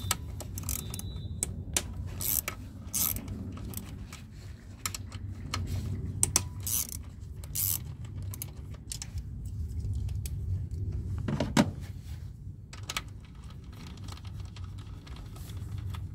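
Ratchet wrench with an extension and hex socket undoing throttle-body screws: irregular metallic clicks and clinks of the ratchet and tool against metal, one sharper clink about two-thirds of the way through, over a steady low rumble.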